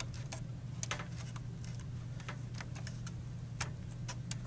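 Small irregular clicks and rattles of plastic connectors and wires being handled inside a desktop computer case as a power supply cable is fitted to the motherboard, over a steady low hum.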